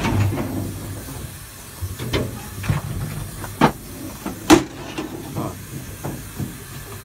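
Steam hissing in a steam locomotive's cab, fading away within the first second, followed by several sharp knocks and clicks from the footplate, the loudest about four and a half seconds in.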